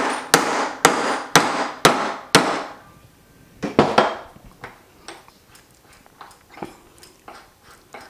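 Hammer blows about twice a second driving a half-inch hole punch through a 50 NTD coin. The blows stop about two and a half seconds in, followed by two softer knocks and light metallic taps.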